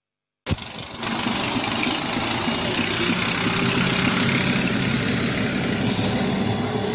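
A steady engine hum at idle, under general outdoor noise, starting abruptly about half a second in.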